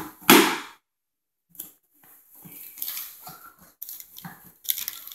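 Wrapping paper and gift packaging being rustled and torn by hand: one loud rustle about a third of a second in, then a pause, then a run of shorter crinkling and tearing noises.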